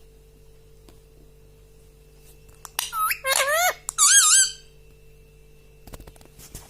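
Ring-necked parrot giving a quick run of high, squeaky whistled calls with wavering pitch, starting about three seconds in after a quiet stretch. A few faint clicks come near the end.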